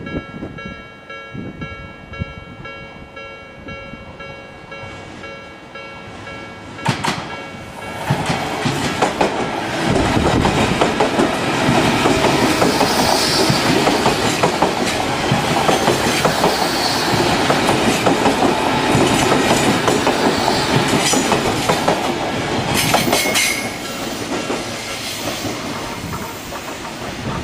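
A level-crossing warning bell rings with a steady, repeating electronic tone. About eight seconds in, an Odakyu 3000-series eight-car electric train passes slowly over the crossing, its wheels running over the rail joints. The train noise is loud for most of the pass and eases near the end.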